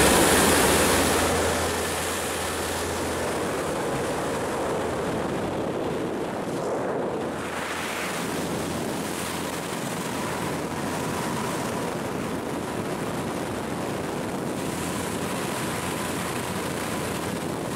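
Steady engine and wind noise inside a skydiving jump plane's cabin during the climb. The tail of a music track fades out in the first second or two.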